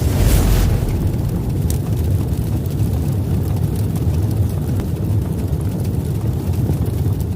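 A steady low rumble with a fainter hiss over it, a little brighter at the very start.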